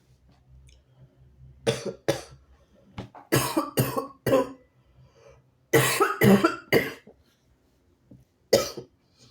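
A sick person coughing harshly in short fits: two coughs, then a run of four, then three, then a single cough near the end.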